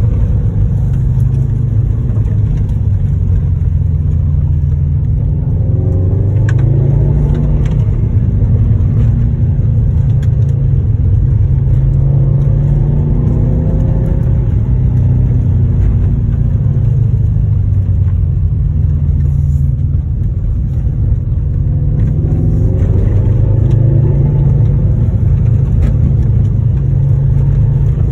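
Subaru WRX STI's turbocharged flat-four engine running as the car drives, heard from inside the cabin as a steady low rumble. Its pitch climbs twice as the car speeds up, about a quarter of the way in and again past the three-quarter mark.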